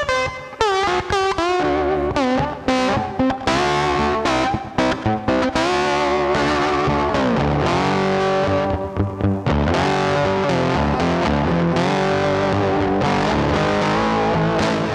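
Music: a distorted electric guitar playing lead notes that bend upward and waver, over a steady backing.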